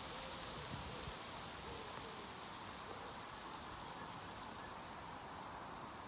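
Wind rustling aspen leaves: a steady, soft hiss of fluttering leaves that eases slightly toward the end.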